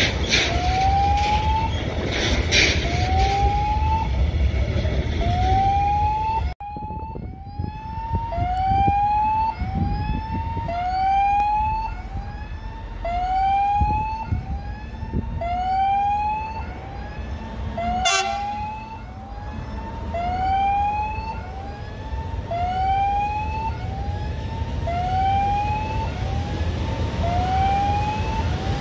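Railway level crossing warning signal sounding a short rising electronic tone over and over, about once every 1.3 seconds, the signal given while the barriers are down for a train. For the first six seconds or so a train's heavy rumble runs underneath, and a single sharp clank comes about two-thirds of the way through.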